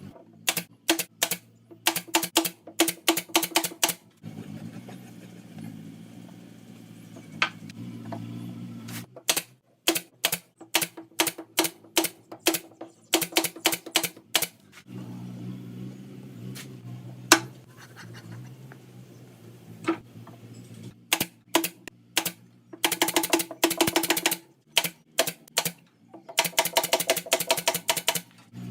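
Rapid bursts of sharp mechanical clicks, several runs of one to two seconds each, with a low steady hum between them.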